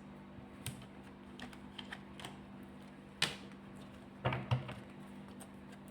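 Tarot cards being handled on a table: a few scattered light taps and clicks, the sharpest about three seconds in.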